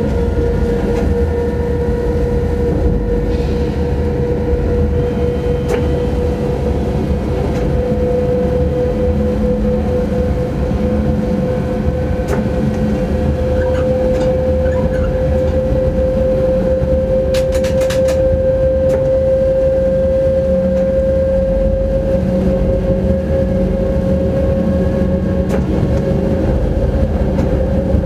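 Train running at speed, heard from inside the driver's cab: a steady low rumble from the running gear under a clear whine that rises slowly in pitch. A short cluster of clicks comes about two-thirds of the way through.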